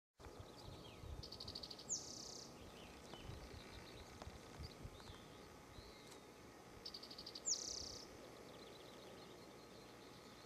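A songbird singing two short phrases about five and a half seconds apart, each a quick stutter of high notes ending in a sharp down-slurred note, over faint outdoor background with a low rumble.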